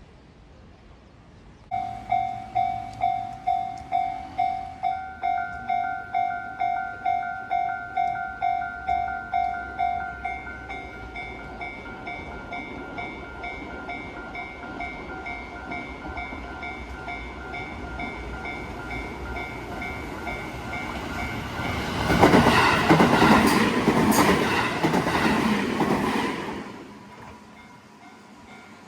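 Japanese level-crossing warning bell starts ringing about two seconds in, a steady electronic ding about twice a second. Near the end an Iyotetsu train passes over the crossing, loud for about four seconds, while the bell keeps ringing faintly.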